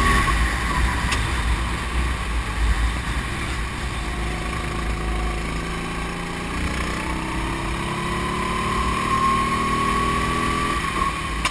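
Kart engine at racing speed, its pitch climbing steadily for several seconds as the kart accelerates, then dropping suddenly near the end. Heavy wind rumble on the microphone underneath.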